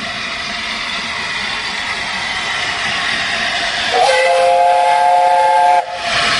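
A Peppercorn A1 4-6-2 steam locomotive approaching with a steady hiss that grows louder, then sounding its chime whistle about four seconds in: three notes held together for nearly two seconds, cut off sharply.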